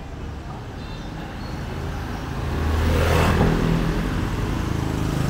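A motor scooter's small engine running as the bike rides up close, growing louder to a peak about three seconds in.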